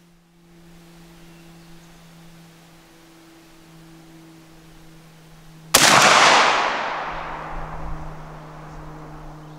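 A single 12-gauge shotgun shot from a Stoeger M3500 firing a 3-inch Winchester Super X rifled slug, about six seconds in, followed by a long echo that fades over some three seconds.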